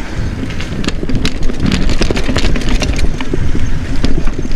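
Mountain bike rolling over rocky trail: a steady low rumble with many sharp, irregular knocks and rattles as the tyres hit rocks and the bike jolts.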